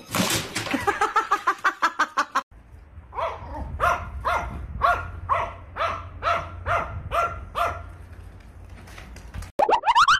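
A small dog barking over and over, about two barks a second, over a low wind rumble, after a short run of quick sharp sounds at the start. Near the end a loud rising whistle-like sound effect cuts in.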